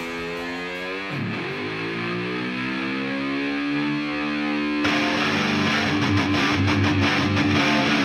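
Rock music led by a sustained, distorted electric guitar note that dips sharply in pitch and climbs back about a second in; just before five seconds the full band comes in hard with drums.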